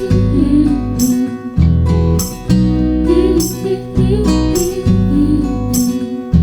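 Background pop music: strummed acoustic guitar with a steady beat, between sung lines.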